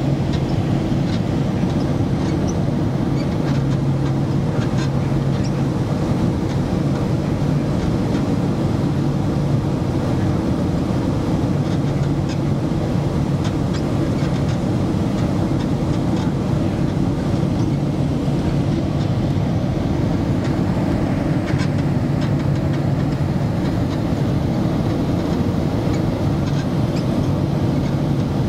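Steady engine and airflow noise inside the cabin of a Boeing 767-300 on final approach, heard from a window seat over the wing. A low hum in it swells and fades several times.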